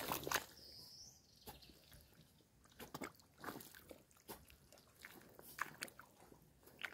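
Faint, irregular crunching and crackling of dry grass and soil being disturbed underfoot by a gumboot, with a short cluster of louder crunches at the start and scattered small clicks after.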